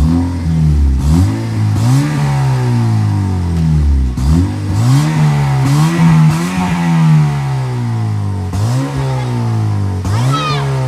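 Honda Civic engine revved repeatedly, about eight blips climbing and dropping back, through an exhaust with the muffler removed and only a small bullet-style sport muffler fitted.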